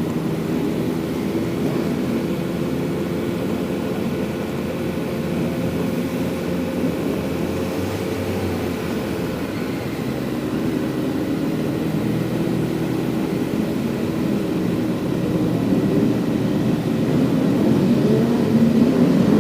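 Kawasaki Z900's 948 cc inline-four motorcycle engine running at steady, moderate revs for most of the stretch, then revving up over the last couple of seconds.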